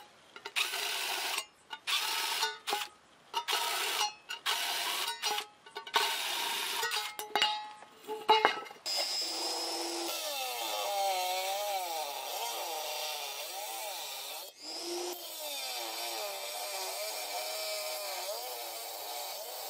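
High-speed rotary tool with a small abrasive cut-off disc grinding into a stainless steel bowl. It goes in short stop-start bursts at first, then cuts continuously from about nine seconds in, its pitch wavering as the load on the disc changes.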